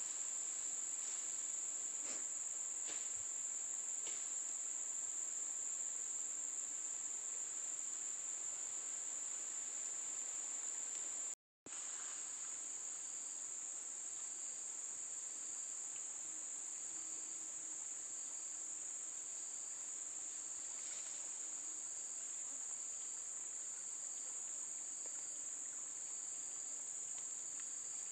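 Steady, high-pitched insect chorus humming without a break. It cuts out for a split second about a third of the way in, and afterwards a fainter, lower chirp repeats about once a second over it.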